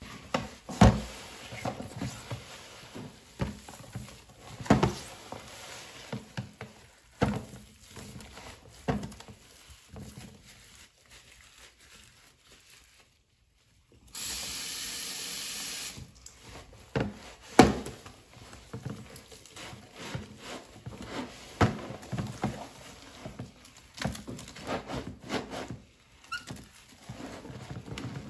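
A soap-soaked green epoxy scrub sponge being squeezed and kneaded by rubber-gloved hands in a plastic tub of thick detergent suds: wet squelches and sloshes at irregular intervals. About halfway there is a short break, then a couple of seconds of steady hiss, before the squelching resumes.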